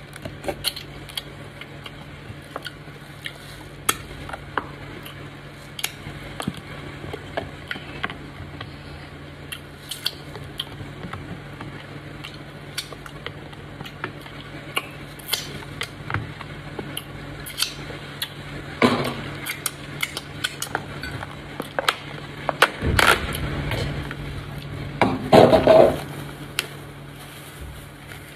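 Clear plastic food bag crinkling and rustling in the hands, with scattered small clicks and taps, over a steady low hum. The rustling gets louder and longer near the end, as the plastic is worked off a yellow dough ball.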